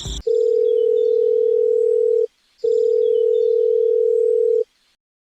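Two long, steady electronic beeps of a single pitch, like a telephone ringing tone. Each lasts about two seconds, with a short break between them.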